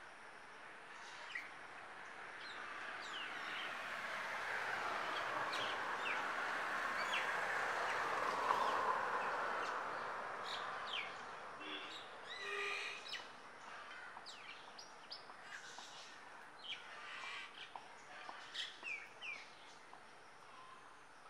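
Common myna calling: a string of short, high, sliding chirps and whistles, with a harsher buzzy call about twelve seconds in. A broad rushing noise swells up and fades away in the first half.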